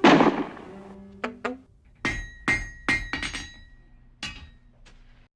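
Added cartoon-style sound effects: a loud crash at the start that fades over about a second, then a string of sharp knocks and glassy clinks with a ringing tone, some in quick pairs, stopping abruptly near the end.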